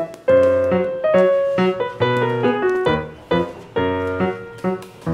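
Background music: a tune of short keyboard-like notes in a steady rhythm over low bass notes.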